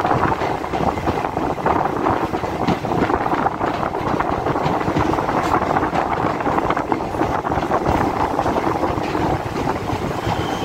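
DEMU passenger train running along a station platform as it pulls in, heard at the open side of the coach: a steady run of wheel-and-rail and underfloor diesel noise with many small clicks.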